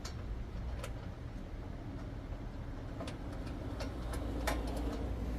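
A few light metal clicks and ticks as a nut is fitted by hand onto a bolt of a power rake's belt cover, over a steady low background hum.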